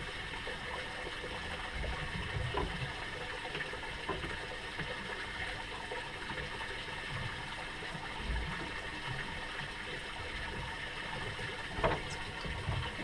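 Water lapping gently against the hull of a drifting fishing boat, with a few light knocks and clicks of gear handled on deck, one about two and a half seconds in and a sharper one near the end.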